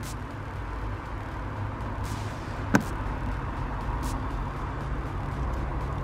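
A single sharp click about three seconds in, from a plastic wiring connector at the boot light being unplugged or snapped together, with a few faint handling rustles. Under it runs a steady low rumble.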